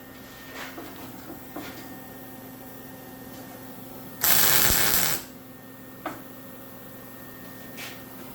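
A short weld 'zip': about one second of loud, even hiss from a welding arc laying a tack on the metal table frame, with a few light metal clicks before and after it.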